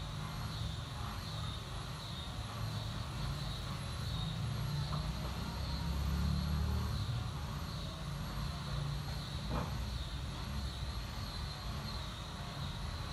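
Steady low background rumble with a constant hiss, swelling a little midway, and one soft tap about ten seconds in.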